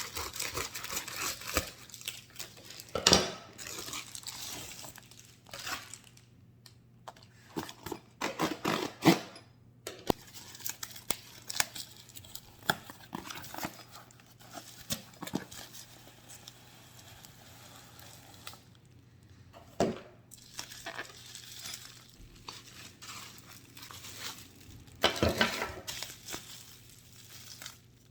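Packaging being opened and handled: irregular crinkling and tearing in bursts, with occasional sharp knocks.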